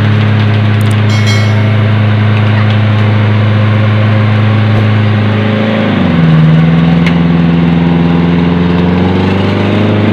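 Lifted off-road 4x4's engine running at steady revs under load as the vehicle climbs out of a muddy rut. About six seconds in the engine note drops, then rises again near the end.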